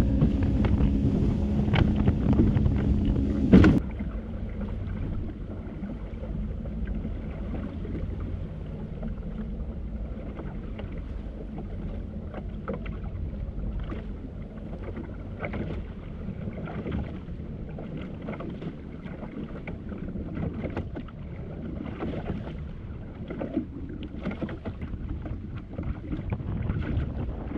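Wind buffeting the microphone over open water on a small fishing boat, with water slapping and scattered light knocks against the hull. Steadier sound, carried over from the music before, ends abruptly about four seconds in.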